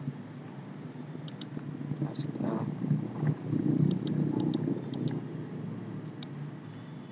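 Computer mouse clicking about a dozen times, several clicks in quick pairs, over a steady low hum of computer and room noise, with a louder low rustling noise in the middle.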